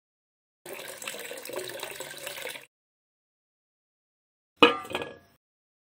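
Water sloshing and splashing in a small metal bucket for about two seconds, then a brief sharper splash, the loudest sound here, about four and a half seconds in.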